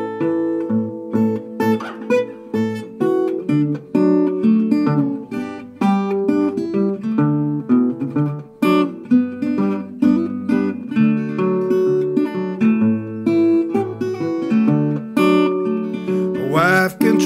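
Metal-bodied resonator guitar playing a Piedmont-style blues instrumental break: a run of plucked treble notes over a bass line. A singing voice comes in near the end.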